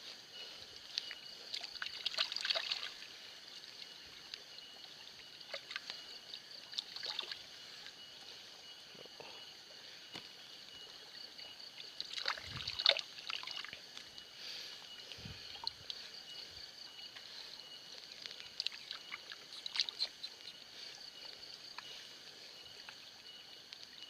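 Water sloshing and trickling as aquatic plants are pulled from shallow water by hand, in scattered splashes, the loudest about halfway through. A steady high-pitched hum runs underneath.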